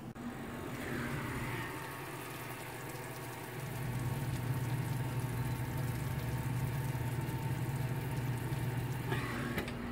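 Oven running while a cake bakes inside: a steady low hum that gets louder about four seconds in.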